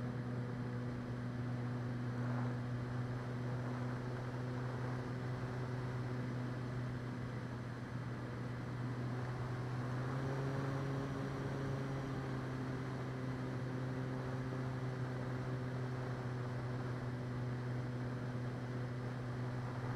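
Electric motor and propeller of an E-flite Clipped Wing Cub RC plane running steadily in flight, heard from on board as a steady drone over wind noise. The pitch rises slightly about ten seconds in.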